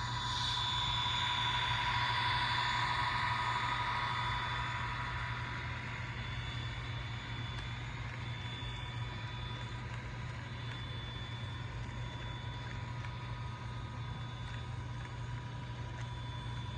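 HO scale model diesel locomotive running, its sound decoder's engine drone steady over a low hum with a thin whine, swelling over the first few seconds as it passes and then settling.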